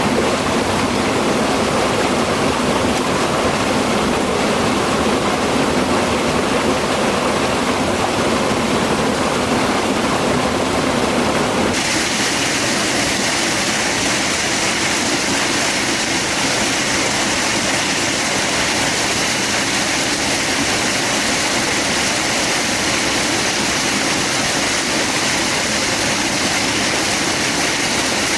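Steady rush of a mountain stream or waterfall. About twelve seconds in, the sound abruptly turns brighter and hissier.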